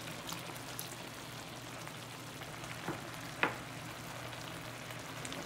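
Chicken liver and gizzard adobo simmering in a stainless steel pot with a steady sizzle, its sauce just laced with vinegar. Two sharp clicks a little past halfway, about half a second apart, the second the louder.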